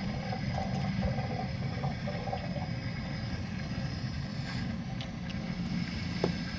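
Water rushing steadily through the camper's plumbing as city water fills the fresh water tank.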